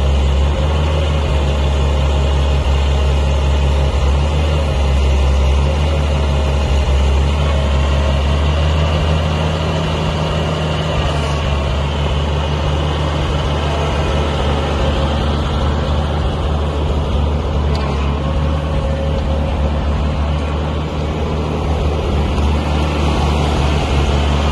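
International 656 Hydro tractor's six-cylinder gasoline engine running steadily as the tractor drives slowly on gravel.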